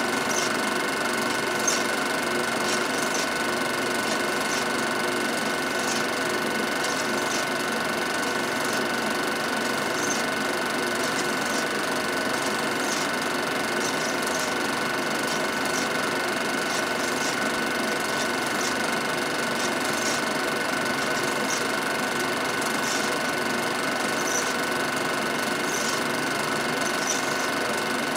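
Film projector running: a steady mechanical whir with faint scattered clicks.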